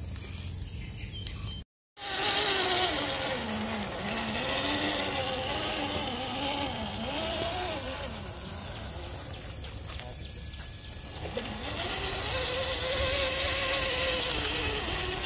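Electric motor and gear train of a radio-controlled scale crawler truck whining, its pitch rising and falling as the throttle changes. The sound cuts out completely for a moment about two seconds in.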